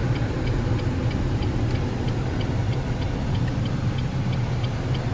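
Steady low engine hum, as in a running vehicle, with a regular light ticking about three times a second over it.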